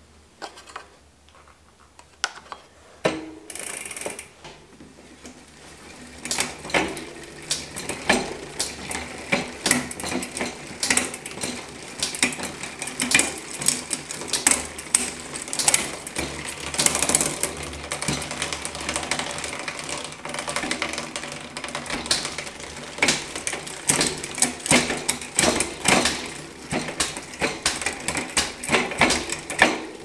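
Bicycle drivetrain turned by hand on a 2010 Gary Fisher Hi-Fi Pro: the chain runs over the rear cassette and derailleur with a fast, uneven clicking and rattling. It starts softly with a few taps and becomes continuous from a few seconds in.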